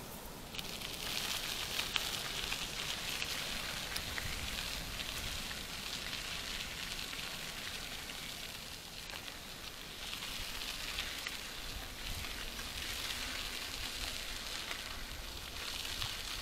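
Bicycle tyres rolling over a gravel-and-dirt path, a steady crackling hiss that starts about half a second in.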